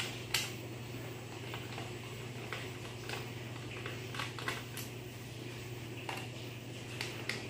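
Small, scattered clicks and ticks of a screwdriver turning out the screws that hold a laptop's hard drive, about a dozen light taps, over a steady low hum.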